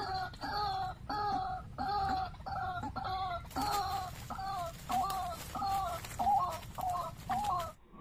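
White-breasted waterhen calling, a steady series of harsh pitched notes at about two a second. About three and a half seconds in, rustling and flapping join the calls as a waterhen is caught in the net trap, and the sound cuts off abruptly near the end.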